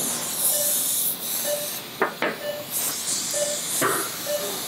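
Surgical patient monitor's pulse beep: a short, mid-pitched tone repeating about once a second, over a steady hiss, with a couple of clicks about two seconds in.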